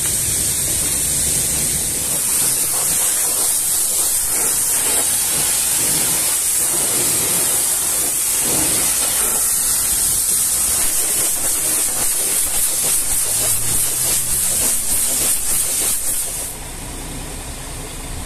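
Steady high hiss of a pressure-washer jet spraying, which cuts off suddenly near the end, over the rough strokes of a bristle brush scrubbing foam on a truck's wet bodywork.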